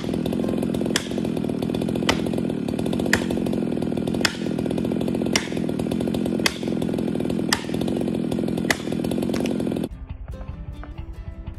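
Chainsaw running steadily as it cuts into the trunk of a dead bur oak, with a sharp tick about once a second. The saw cuts off suddenly about ten seconds in, leaving quieter music.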